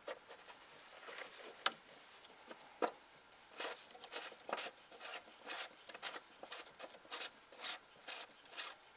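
Oil filter canister cap on a 2016 Mini Cooper S Countryman being screwed back into its housing by hand. A couple of light clicks come first, then short rubbing scrapes about twice a second as the cap is turned down its threads.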